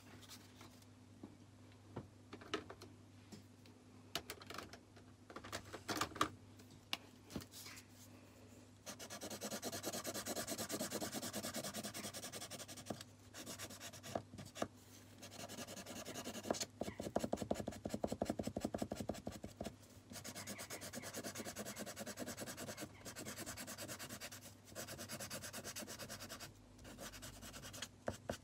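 Yellow felt-tip marker being scribbled rapidly back and forth over a small piece of paper, colouring it in, in long runs of quick strokes with short pauses. Before that come only a few scattered light taps and clicks.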